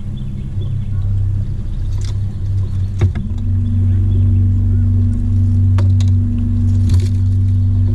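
Bass boat's trolling motor humming steadily, stepping up to a higher, stronger tone about three seconds in as it is sped up. A few short knocks from handling gear on the deck.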